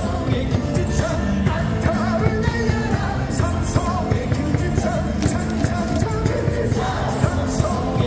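A baseball cheering song with a steady, driving beat over stadium loudspeakers, with a large crowd singing and shouting along.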